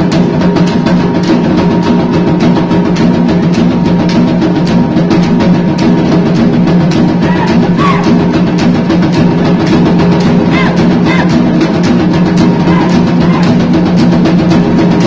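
Loud drum-led music with a steady repeating beat accompanying a bamboo-pole dance, with a few brief high wavering sounds over it around the middle.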